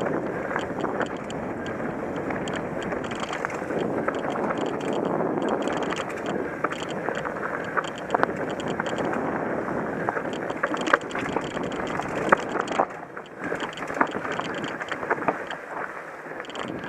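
Mountain bike rolling fast down a dirt singletrack: rushing wind and tyre noise, with frequent sharp clicks and rattles from the bike over rough ground, more of them in the second half as the trail turns rocky.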